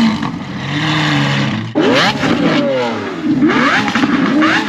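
Lamborghini Aventador SVJ V12 engines running, then, after an abrupt change less than two seconds in, revving repeatedly: the pitch sweeps up and falls back several times, with crackles between the revs.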